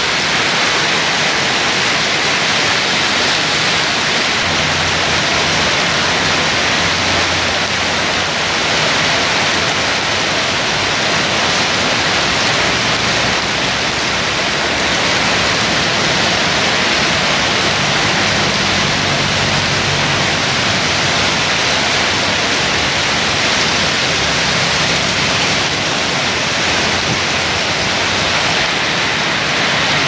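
Heavy rain pouring steadily onto a wet road and roofs, a dense, even hiss.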